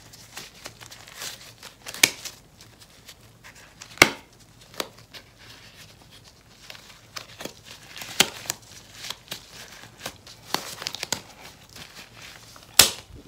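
Thin rubber gloves being pulled and worked over gloved hands: crinkling and rubbing, with a few sharp snaps, the loudest near the end.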